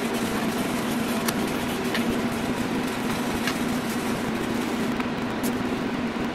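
Steady running hum of the desktop laser engravers' exhaust blowers and cooling fans, with a few light clicks and taps from handling the keychain pieces.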